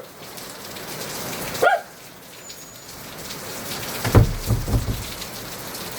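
Heavy rain falling steadily. There is a short pitched yelp or call about a second and a half in, and a cluster of low thumps about four seconds in.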